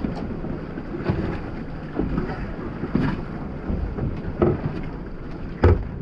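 Wind buffeting the microphone aboard a small boat in ocean swell, over a steady low rumble of water and boat noise. There are a few short knocks, the loudest near the end.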